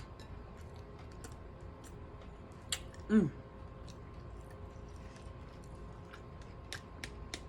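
Close-up mouth smacking and chewing of a BLT sandwich: a run of small wet clicks. About three seconds in comes a louder smack, then a short vocal sound that drops sharply in pitch.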